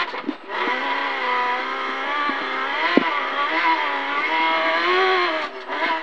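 Toyota Hilux rally car's engine heard from inside the cabin, revving up and down as it drives over rough desert track. The engine drops away briefly near the start and again near the end, and a single sharp knock comes about halfway through.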